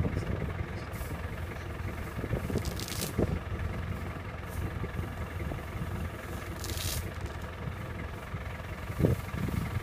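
An African elephant tearing up grass with its trunk while feeding: a few brief rips over a steady low rumble.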